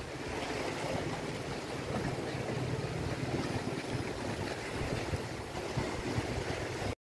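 Seaside ambience: a steady rush of sea waves washing against rocks, with wind rumbling on the microphone. It cuts off suddenly at the very end.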